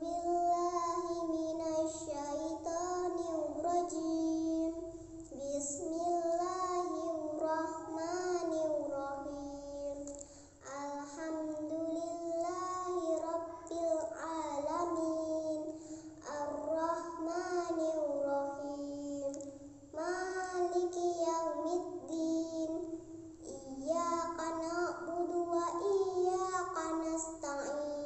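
A young girl singing solo and unaccompanied: long melodic phrases with held, wavering notes and short breaths between them.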